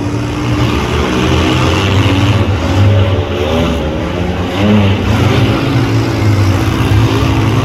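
Engines of several demolition-derby vans and small trucks running together as a loud, steady low rumble. Their pitch rises and falls as the drivers rev.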